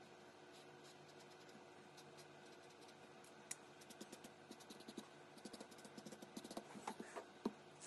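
Black felt-tip marker scratching on paper: barely audible at first, then from about halfway a run of short, quick strokes that come thicker toward the end.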